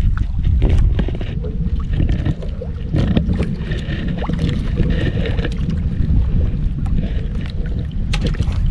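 Wind buffeting the microphone and water lapping against the wooden hull of a small outrigger fishing boat: a heavy, steady low rumble with scattered clicks and knocks.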